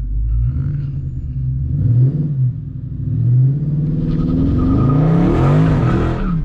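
2019 Dodge Charger Scat Pack's 392 (6.4-litre) Hemi V8 revving hard on a launch attempt. The revs rise and fall several times as the rear tires spin with no traction, and tire noise joins in over the last couple of seconds.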